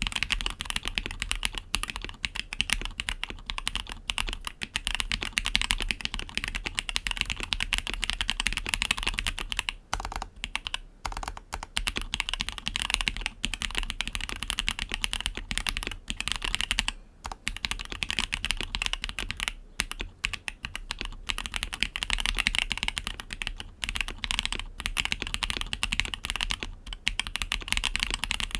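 Fast, continuous typing on a Matrix Vita mechanical keyboard with TTC Wild 42g switches, GMK Metaverse 2 keycaps and an aluminium top-mount plate: a dense stream of keystroke clicks with a few brief pauses.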